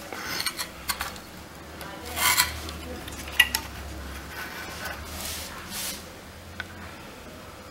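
Small hand tools clicking and scraping against a TV power-supply circuit board as a module wire is positioned and soldered on, with several short hissing bursts, the loudest about two seconds in.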